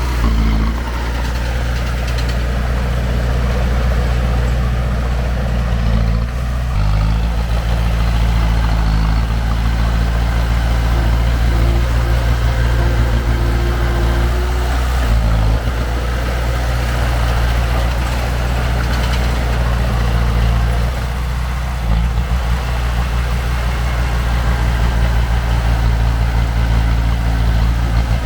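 Heavy earthmoving machine's diesel engine running steadily, its note shifting a few times as engine speed or load changes.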